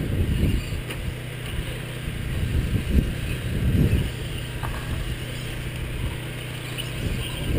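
Radio-controlled short-course trucks racing on a dirt track, their motors running and surging as they go round.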